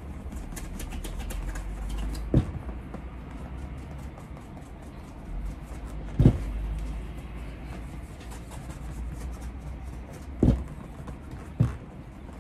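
A leather cap-toe shoe being buffed with water in quick, soft rubbing strokes, broken by four dull knocks; the loudest knock comes about six seconds in.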